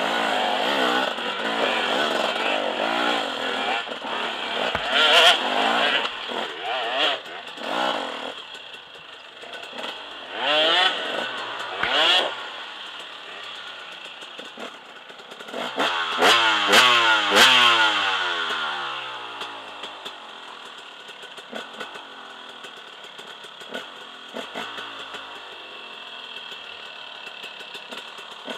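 Enduro dirt bikes climbing a steep rocky trail, engines revving up and down in bursts with knocks and clatter from the rocks. After about 18 seconds the revs drop away sharply and the engine runs low and quiet.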